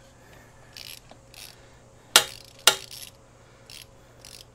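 Hand ratchet clicking in short separate strokes, with metal-on-metal tool clinks, while loosening a fastener on a Harley-Davidson Softail's exhaust. Two louder clicks come a little past two seconds in, about half a second apart.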